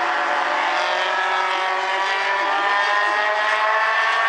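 Several small four-cylinder race cars running hard in a pack, their engines overlapping, each pitch climbing slowly as the cars accelerate.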